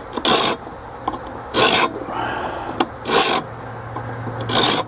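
A small hand file rasping across the edge of an old steel file held in a vise, cutting the teeth of a homemade broach: four separate strokes, about one every second and a half.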